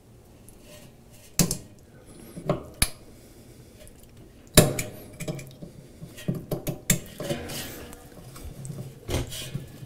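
Scattered sharp metallic clicks and clinks of a blade prying at the plastic spline on a Speed Queen washer's spindle hub, with the loudest knocks about a second and a half and four and a half seconds in and a run of smaller clicks after.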